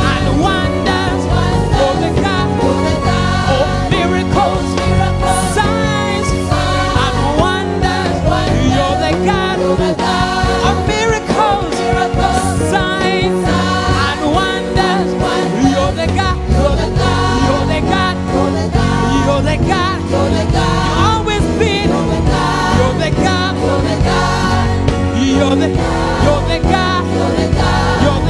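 Gospel worship music from a church choir and singers with live band accompaniment, the voices singing over a steady bass and drums.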